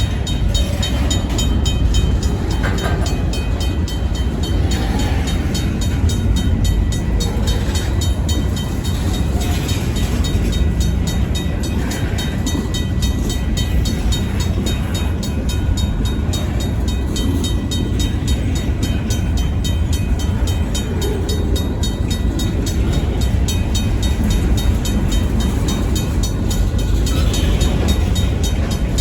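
A RACO mechanical crossing bell rings in rapid, even strokes. Under it runs the steady low rumble of a Union Pacific local train's diesel locomotives moving slowly over the crossing.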